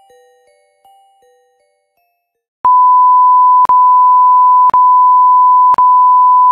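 A loud, steady, high electronic beep tone starts about two and a half seconds in and is broken by a brief click about once a second. Before it, a few soft chiming music-box-like notes fade out, followed by a moment of silence.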